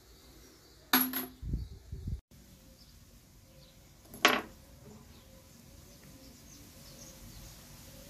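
Metallic clinks of brass 9mm cartridge cases and reloading tools being handled: a sharp ringing click about a second in, followed by a few dull knocks on the wooden bench, and another sharp click a little past four seconds.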